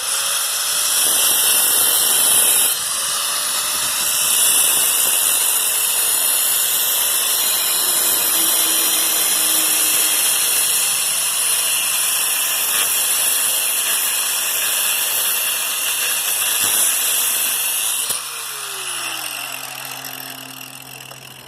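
An electric power tool cutting into a scrap electric motor: a loud, steady, high-pitched grinding that starts abruptly. About 18 seconds in it cuts off and winds down.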